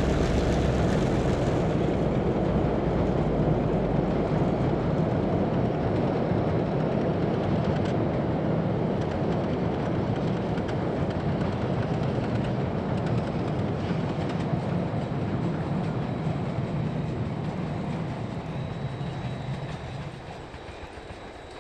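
Long passenger train hauled by DA-class diesel locomotives rolling past on the rails with a steady clatter. A low diesel engine hum dies away in the first second or so, and the rolling noise fades as the train moves off, dropping sharply near the end.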